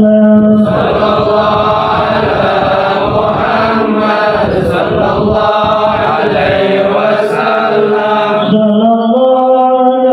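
Congregation chanting a maulid sholawat together. One or a few voices hold a note, the whole group joins in under a second in, and near the end the singing thins back to a few voices.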